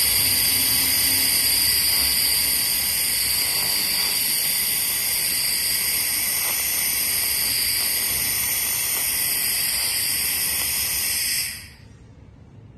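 Handheld fiber laser in cleaning mode firing continuously: a steady high-pitched hiss that cuts off about 11 seconds in when the trigger is released.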